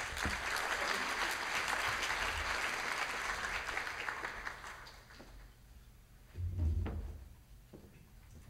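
Audience applauding, fading out about halfway through. About two-thirds of the way in comes a single dull low thump.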